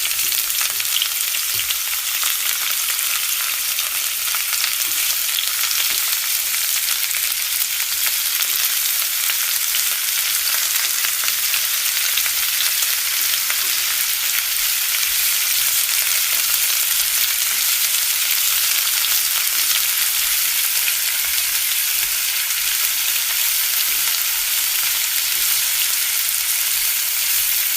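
A steady crackling hiss, mostly high-pitched and peppered with fine pops, at an even level throughout.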